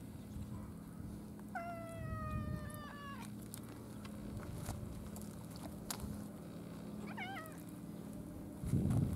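Domestic cat meowing: one long meow about a second and a half in, sliding slowly down in pitch, then a short wavering meow about seven seconds in. A low thump near the end.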